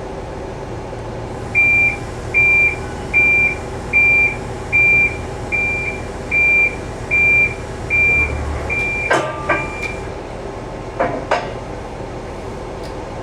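Heavy plant's reversing alarm beeping at one steady high pitch, about one beep every 0.8 s for some eight seconds, over an engine running steadily. A few sharp clanks come as the beeping stops, and two more follow about a second later.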